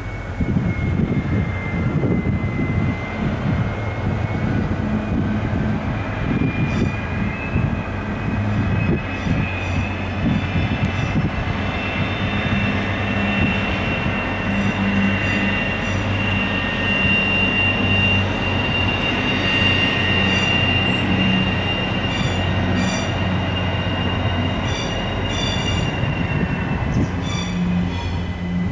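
Two electric passenger trains, a DB double-deck regional train and an ÖBB S-Bahn unit, rolling slowly past. Steel wheels squeal on the curve in a steady high whine that climbs a little in pitch, over a low hum. From about a third of the way in, the wheels click over rail joints in pairs and small groups.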